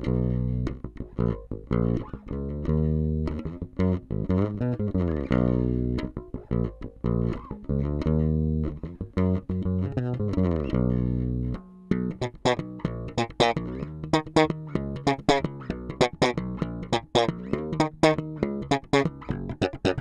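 Fender Deluxe Active Precision Bass Special electric bass played solo on its rear Jazz Bass pickup alone. For about twelve seconds it plays held notes with slides between them, then a quicker passage of sharply plucked notes.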